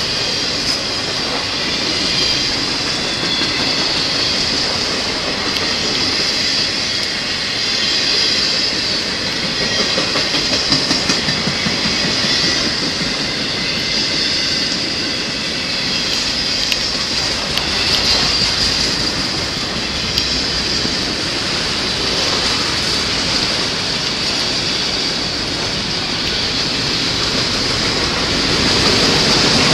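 Freight train of autorack cars rolling past at trackside: a steady rumble and clickety-clack of steel wheels over the rail joints, with a high steady squeal from the wheels throughout.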